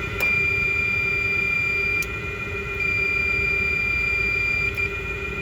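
A meter's continuity tone sounds twice, each for about two seconds, starting and stopping with small clicks, over a steady machinery hum. It marks a closed path to ground from a compressor the technician has found grounded.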